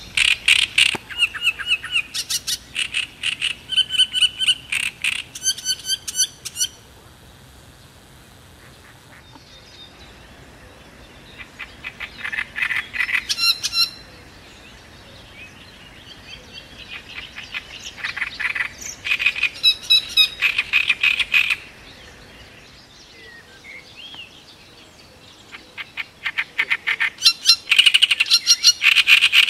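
Great reed warbler singing in four phrases of a few seconds each, every phrase a run of rapidly repeated notes, with pauses between them.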